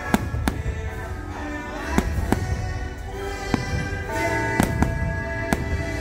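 Aerial firework shells bursting in sharp bangs, about eight in six seconds, over the show's soundtrack music with held tones.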